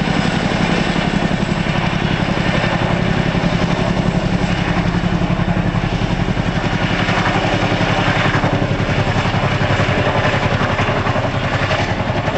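Boeing CH-47F Chinook tandem-rotor helicopter in flight, with twin Lycoming T55 turboshaft engines: its rotor blades beat with a rapid, even rhythm over the engine noise, loud and steady.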